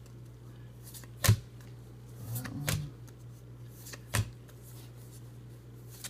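Trading cards being handled: three sharp clicks as the cards are moved and set down, the first about a second in the loudest, over a steady low hum.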